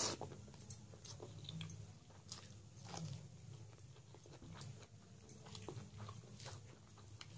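Close-miked chewing and wet mouth clicks as a person eats a handful of rice and mutton curry, with a loud smack right at the start as the food goes into the mouth, over a low steady hum.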